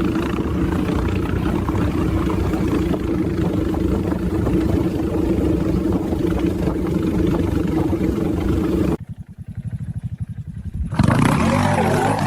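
Motorcycle engine running steadily at speed. About nine seconds in it drops to a quieter, quick low putter for two seconds. Near the end a different loud sound with a wavering pitch cuts in.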